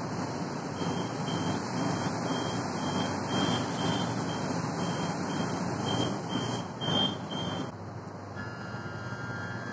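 Door warning beeps on a KTM commuter train at a station stop: a short high beep repeating about twice a second for some six seconds, over the steady rumble of the carriage.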